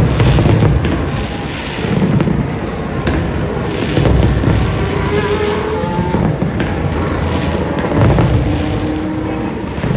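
Aerial fireworks going off: several deep booms, one every two seconds or so, with dense crackling and sharp pops between them.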